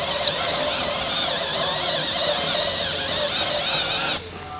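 A power tool spinning a rubber eraser wheel against car paint, a steady whirring grind as it rubs off adhesive residue. The sound cuts off abruptly about four seconds in.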